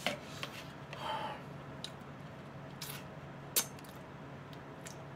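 A few faint, scattered clicks of a computer mouse, one louder about three and a half seconds in, over a low steady hum.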